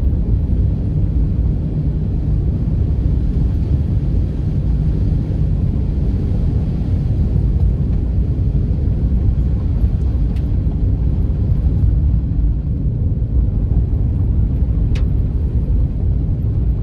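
Four-wheel drive vehicle driving along a rough dirt track: a steady low rumble of engine and tyres, with a couple of faint ticks partway through.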